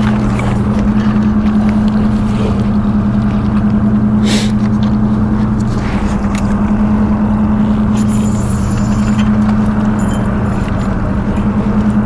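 Steady low mechanical hum from a motor aboard a small fishing skiff, holding two tones; the lower tone drops out for a few seconds midway. A single short click sounds about four seconds in.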